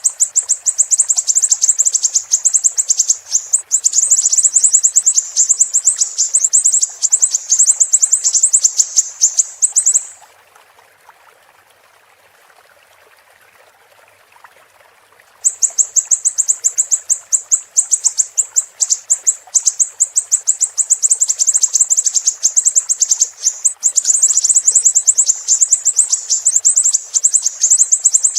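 Siri-siri bird singing a long, very fast, high-pitched twittering trill. It breaks off for about five seconds in the middle, then starts again. Under it runs a faint steady sound of flowing water.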